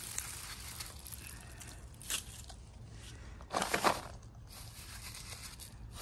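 Dry amaranth seed heads rustling and crackling as they are rubbed and crumbled by hand, with a louder crunching rustle about three and a half seconds in.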